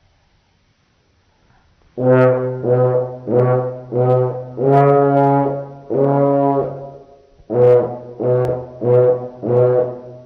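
Trumpet playing a string of about ten tongued notes on the same pitch, starting about two seconds in. Two notes in the middle are held longer, and there is a short break before the last four. The sound is slowed along with the slow-motion video, so the notes come out lower and more drawn out than a trumpet normally sounds.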